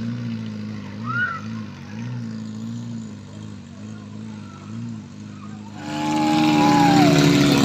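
Off-road jeep engine labouring up a rutted mud track, its note rising and falling in a regular wobble as the jeep rocks over the ruts and moves away. About six seconds in it gives way to a louder, closer jeep engine revving up and down.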